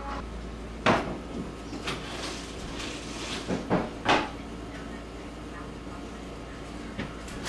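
Kitchen drawers and cabinet doors being pulled open and pushed shut: a handful of separate knocks and thuds, one about a second in, another near two seconds, a close pair near four seconds and a last one near seven.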